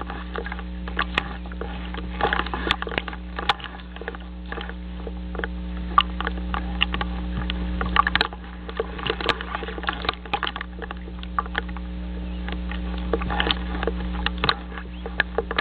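Nest-camera audio: a steady electrical hum with irregular crackling clicks scattered all through.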